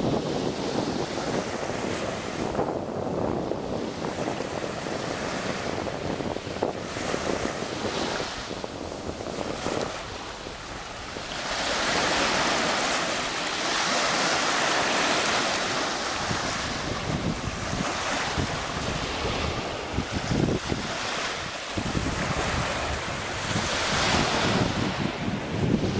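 Small waves washing up and drawing back over a sandy shore, the wash growing louder about halfway through, with gusty wind rumbling on the microphone.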